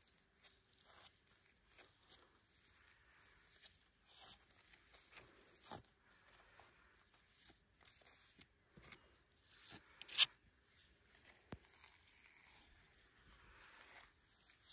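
Flat white scraper smearing thick, sticky apple salt paste onto the bark of a weathered wooden post: faint, irregular tearing and scraping of the paste, with scattered clicks of the blade on the wood, the sharpest about ten seconds in.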